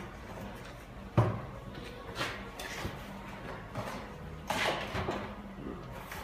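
Knocks and short clatters of hand work in a repair shop, the sharpest knock about a second in and a longer clatter about four and a half seconds in, over a steady low hum.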